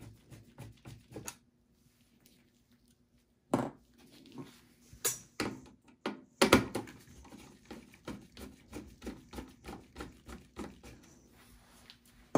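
Phillips screwdriver backing out motherboard screws in a steel desktop PC case: small clicks and taps of the tip in the screw heads, three louder knocks about a second and a half apart near the middle, then a long run of quick clicks, about three or four a second, as a screw is turned out.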